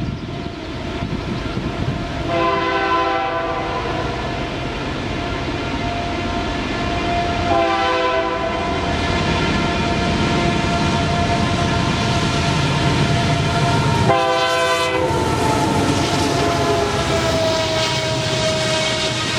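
A train's air horn sounding three blasts a few seconds apart, the last the shortest, over the steady rumble of a train that grows louder as it comes by.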